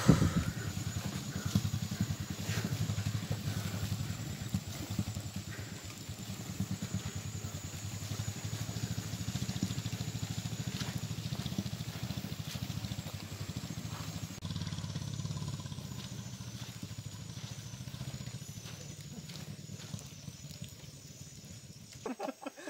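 Small motorcycle engine running at low speed over rough dirt, a steady low pulsing that drops back a little about two-thirds through and falls away near the end.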